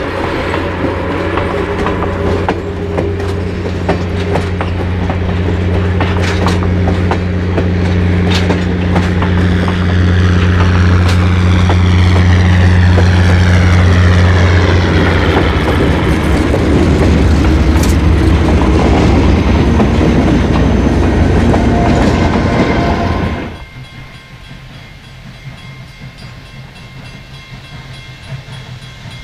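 A passenger train rolling past, its wheels clicking over the rail joints, with the steady drone of trailing diesel locomotive engines growing louder and dropping in pitch as they pass. About 23 seconds in the sound cuts to a much quieter, steady low rumble.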